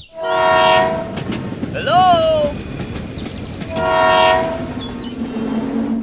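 Train horn sounding two blasts, each about a second long and about three seconds apart, with a short tone that rises and falls between them, over the steady rumble of a running train.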